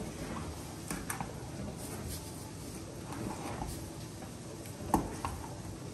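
Soft scattered clicks and taps from seasoning being shaken out of a plastic shaker while a hand works it into raw lamb chops in a stainless steel bowl, with one sharper click near the end.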